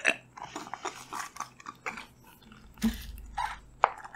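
Close-up crinkling, tearing and clicking as a Maaza drink carton's plastic straw wrapper is bitten open and the straw is worked into the carton, with a low thump about three seconds in.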